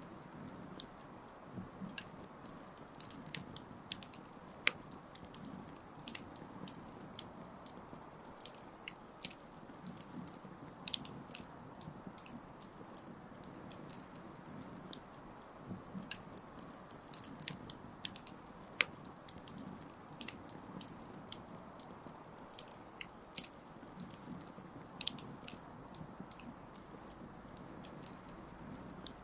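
Wood campfire crackling: irregular sharp snaps and pops, several a second, over a steady low hiss of burning.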